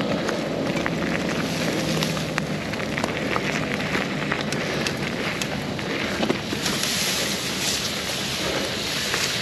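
Mountain bike riding fast along a dirt singletrack: tyres rolling over the dirt and wind rushing over the microphone, with a constant run of small clicks and rattles from the bike and twigs. The rushing briefly turns hissier near the end, as tall grass brushes the bike.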